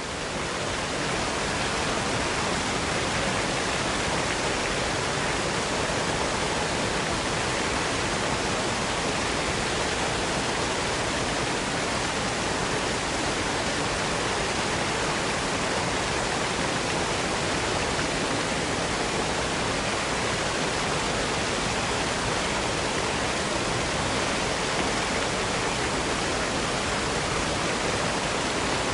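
Waterfall: a steady rush of falling water that fades in over the first second, then holds even.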